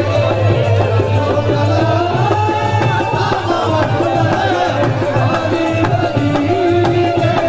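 Live qawwali music: singing over a steady rhythm played on a dholak hand drum.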